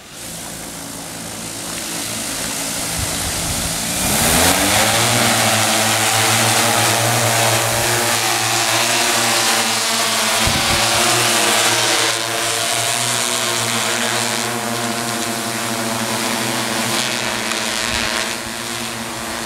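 Multirotor drone's propellers humming, rising in pitch and loudness about four seconds in as they spin up, then holding a steady hum.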